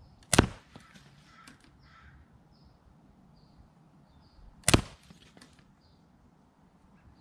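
Two shots from a CO2 pellet pistol, sharp cracks about four seconds apart.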